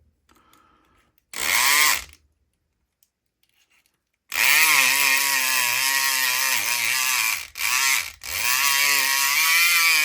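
SouthOrd E500XT battery-powered electric pick gun running, its motor-driven needle vibrating against a lock's pins. A short burst starts about a second in, then the tool runs continuously from about four seconds in, its pitch wavering as the load changes, with two brief stops near eight seconds.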